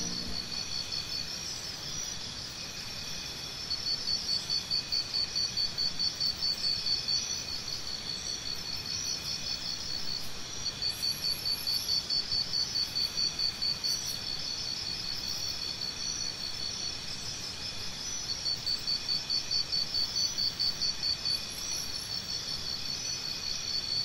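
Forest insects trilling: a steady, high-pitched chorus with rapid pulsing trills that swell louder in bursts of about three seconds, several times over.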